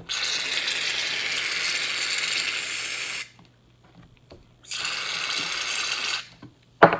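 Aerosol shaving-cream can spraying foam into a plastic tub in two steady hisses, the first about three seconds long and the second about a second and a half. A short sharp knock comes near the end.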